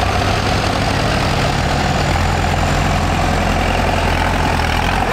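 Modern diesel farm tractors, a John Deere and a New Holland among them, driving slowly past one after another close by. Their engines run at low revs with a steady note.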